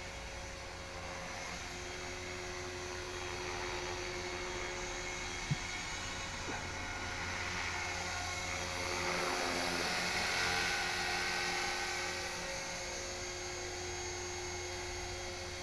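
HK-450GT electric radio-controlled helicopter in flight: the steady whine of its electric motor and rotors, growing somewhat louder about nine seconds in before easing back. A single short click sounds about five and a half seconds in.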